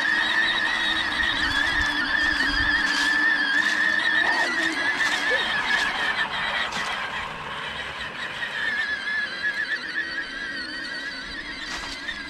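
Lawn mower running through fallen leaves with a high, wavering whine, described as 'screaming in pain', and a few sharp ticks of debris. It is strained under the load and settles a little softer about two-thirds of the way through.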